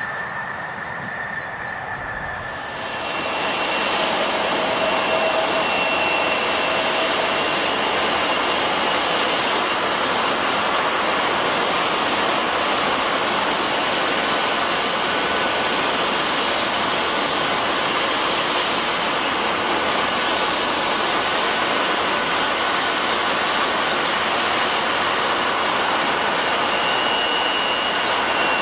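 Jet airliner engines: the noise swells about three seconds in, then holds as a loud, steady rush with a faint high whine over it.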